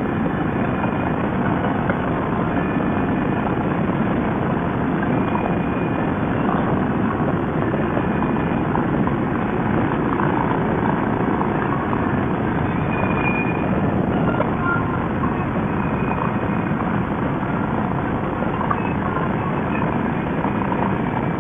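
Harley-Davidson touring motorcycle cruising at highway speed: steady engine drone mixed with wind rush.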